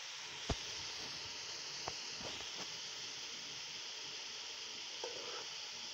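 Shredded cabbage sizzling in hot oil in a steel pot, a steady hiss. Two sharp knocks of the metal spoon against the pot, the louder one about half a second in.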